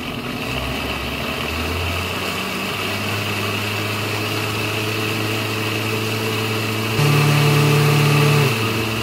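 Countertop blender running, blending milk and banana into a smoothie. The motor rises in pitch over the first few seconds as it comes up to speed, then runs steadily, growing louder for about a second and a half near the end.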